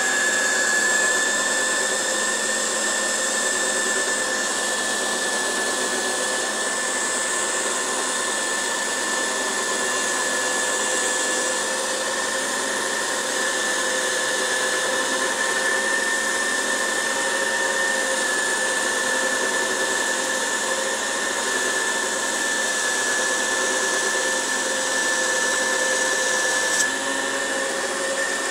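Glass ring saw running and cutting through textured art glass: a steady motor whine over the hiss of the diamond blade grinding through the glass.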